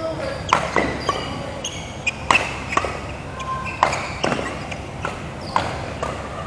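Badminton rally: rackets striking the shuttlecock in a string of sharp hits, roughly one or two a second, with short squeaks of court shoes on the court floor between them.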